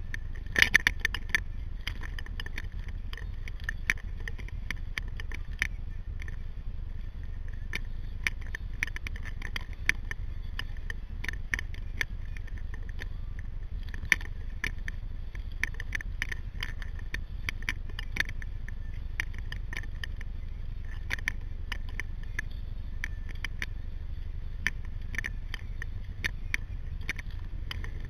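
Water splashing and dripping around a sea kayak under way: many irregular small splashes and ticks over a steady low rumble.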